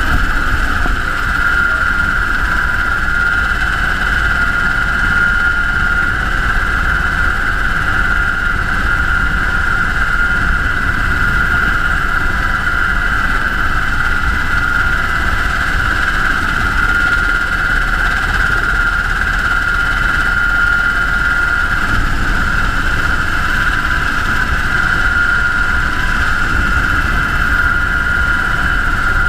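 UH-60 Black Hawk helicopter in flight, a loud steady drone: a constant high whine over a low rumble.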